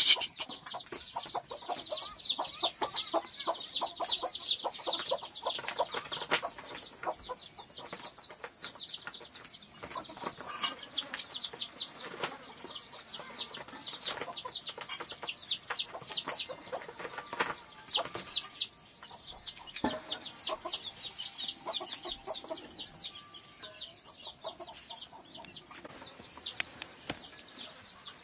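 Chickens cheeping: a dense stream of short, high calls, many a second, which thins out over the second half. Scattered sharp clicks run alongside.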